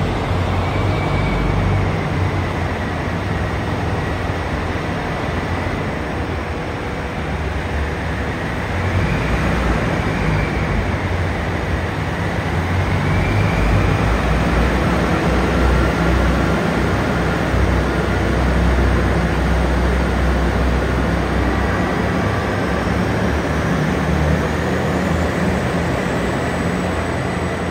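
JR Hokkaido KiHa 283 series diesel multiple unit pulling out of a station, its diesel engines running under load with a steady low drone and a high whine that wavers in pitch.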